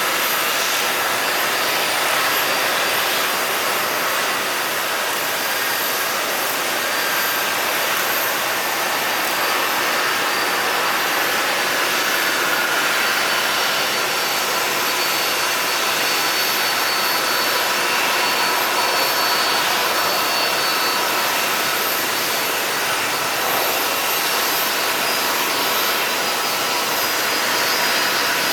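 Jet airliner engines running at low, taxi-level power: a steady rushing noise with a thin high whine over it, unchanging in level.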